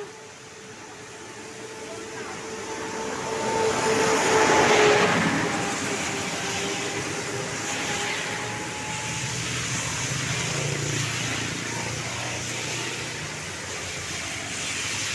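A large vehicle, most likely a bus, passing close by on the road, loudest about four to five seconds in, with a steady held tone through the first half that fades out about nine seconds in.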